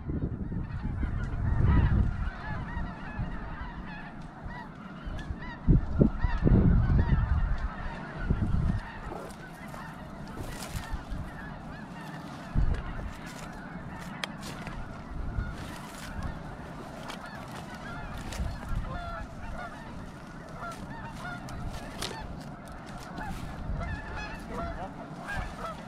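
A large flock of snow geese calling continuously, a dense chorus of many overlapping honks. Low thumps and rustling close to the microphone, loudest about two and six seconds in.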